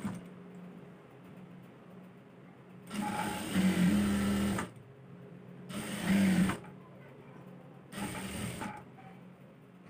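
JACK industrial lockstitch sewing machine stitching down the folded hem of a cotton napkin. It runs in three short bursts: about a second and a half, then two of under a second each. A low steady hum carries on between the bursts.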